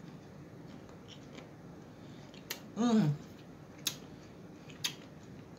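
A person chewing food close to the microphone, with a few sharp mouth or utensil clicks. About three seconds in there is a short 'mmm' of enjoyment that falls in pitch.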